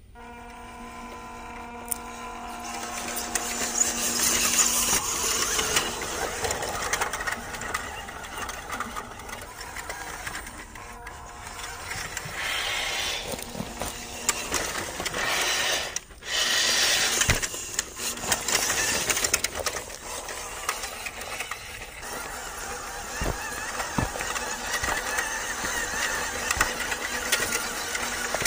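Toy-grade RC truck's small electric motor and gearbox whining as it drives, with its tyres crunching over dirt, pine needles and dry leaves. The whine is steadiest at the start, and the sound cuts out briefly about halfway through.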